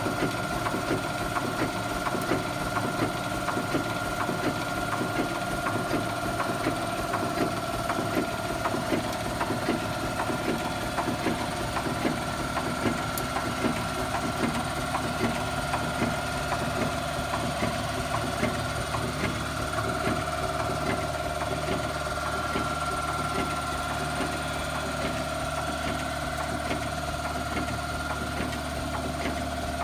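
A 6-inch scale Burrell Gold Medal tractor's steam engine running steadily on compressed air instead of steam: a constant fast mechanical clatter and ticking from the motion. A steady high whine sounds alongside it.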